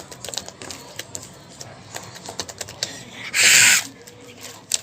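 Freshly made slime squeezed and kneaded by hand, giving many small sticky clicks and pops. About three and a half seconds in there is one short, loud hiss.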